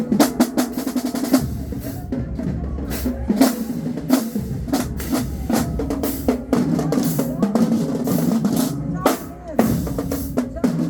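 Marching band drumline playing a cadence: snare drums and bass drums striking in a steady rhythm of sharp hits, with deep bass-drum booms heaviest in the first few seconds.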